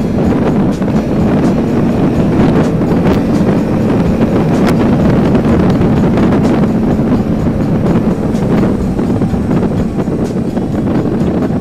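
Motorcycle engine running steadily under way, with wind rushing over the helmet-mounted camera's microphone.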